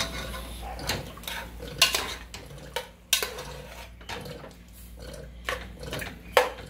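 Metal spoon knocking and scraping against the inside of an aluminium pressure cooker as chunks of beef are stirred: a dozen or so irregular clanks, the loudest about two seconds in and just before the end.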